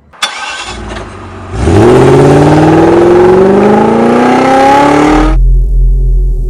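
Car engine accelerating hard, its pitch climbing steadily for about three and a half seconds before it cuts off suddenly, leaving a low rumble. A sharp click comes just before.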